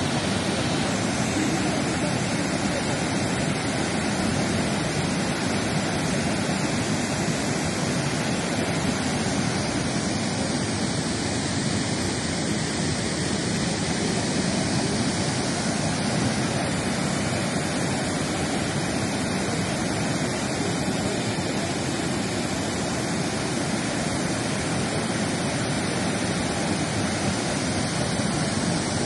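Mudflow of water and debris rushing down the slope and across the road, a steady rushing noise with no let-up.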